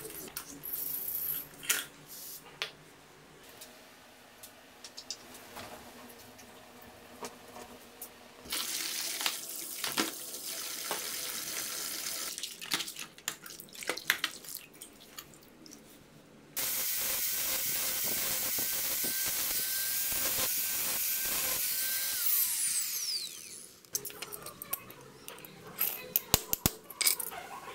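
Hand work on a rusty steel hacksaw frame: scraping and clicking, then splashing and scrubbing in a basin of soapy water, then a power tool running steadily for several seconds and winding down with a falling whine. Near the end, sharp hammer blows on a punch knock out a rivet.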